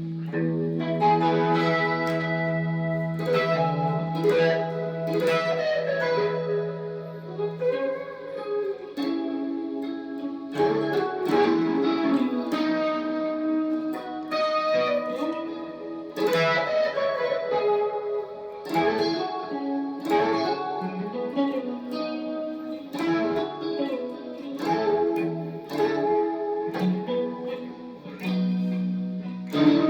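Guitar playing an instrumental jam: picked notes and short melodic runs, over a held low note for about the first eight seconds.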